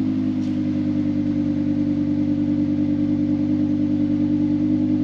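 Audi R8 V10 Spyder's 5.2-litre V10 running through its ASG valved exhaust at steady revs, with no revving up or down.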